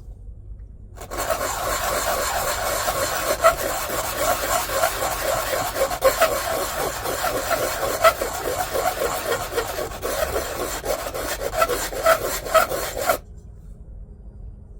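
A 3D-printed plastic repair plug rubbed back and forth on sandpaper in quick, even strokes. The plug is being sanded so its edge sits flat and square. The sanding starts about a second in and stops abruptly near the end.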